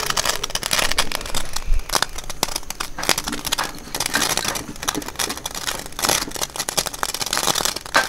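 Newly lit fire of wood shavings and kindling crackling and fizzing with many rapid small pops, the excess magnesium scraped from the fire starter sparkling in the flame like fireworks. A few louder knocks as wooden kindling sticks are laid on.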